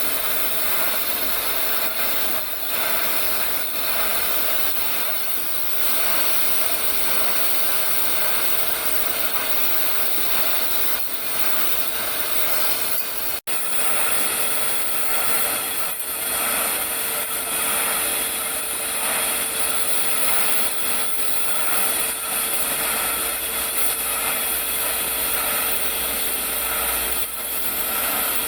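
Automatic TIG pipe-welding rig running: a steady, loud hiss with a constant hum, briefly cutting out about halfway through.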